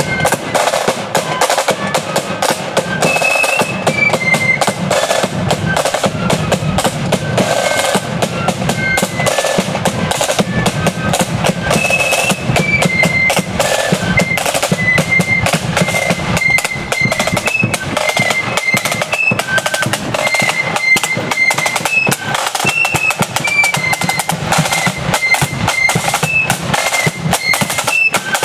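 Marching flute band playing a tune: rapid side-drum strokes and rolls with bass drum beats under a high flute melody.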